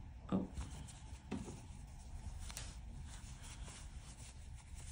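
Faint rubbing and rustling of acrylic yarn drawn over a crochet hook as double crochet stitches are worked. There are two brief soft sounds in the first second and a half and one light click a little after two and a half seconds.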